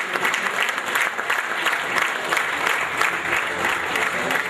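Audience applauding steadily as a player of the year receives her award.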